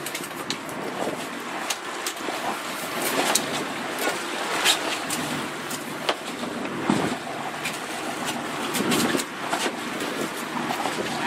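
Wind and choppy sea around a small open boat: a steady rush of noise with frequent short knocks and splashes of water against the hull.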